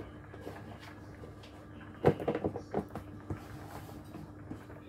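Kitchen handling noise: a quick cluster of knocks and clatters about two seconds in, as things are put away on a counter, over a faint steady hum.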